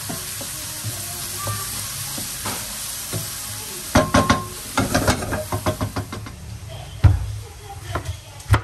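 Garlic and onion frying in oil with a steady sizzle. From about halfway a utensil stirring and clicking rapidly against the cookware, then two louder knocks near the end.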